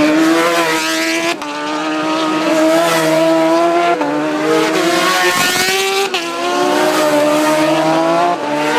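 Road-racing motorcycle engines at high revs, accelerating hard past: the engine note climbs through each gear and drops sharply at each upshift, four shifts about two to three seconds apart.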